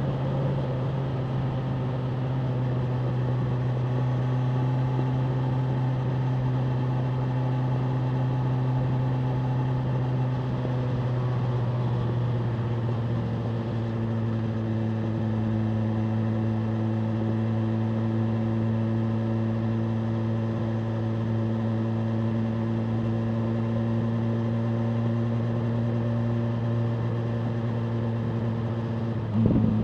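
BMW M1000R Competition's inline-four engine running at steady cruising revs, the pitch dropping slightly about halfway through, with a brief louder burst near the end.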